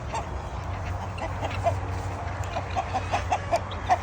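Chickens clucking, many short clucks a second, more of them toward the end, over a low steady rumble.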